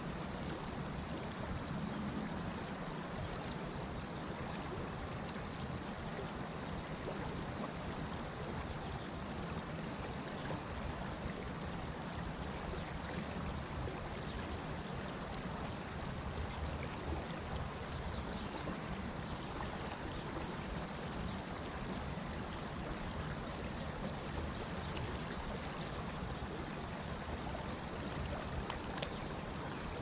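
Shallow creek water running over stones: a steady rush with no breaks.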